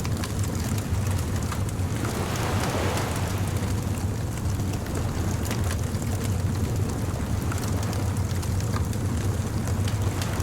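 Beach bonfire ambience: a steady low rumble of surf, a wave washing in about two seconds in, and scattered small crackles from the fire.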